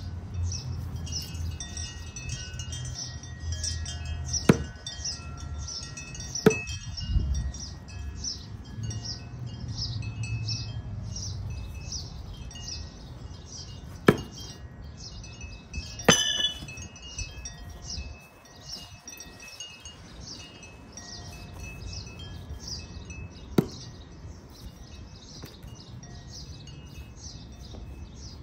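Wind chimes tinkling continuously. Five sharp knocks of half-spin thrown knives striking a wooden log target are spread through, one with a metallic ring. A low wind rumble on the microphone is heard in the first half.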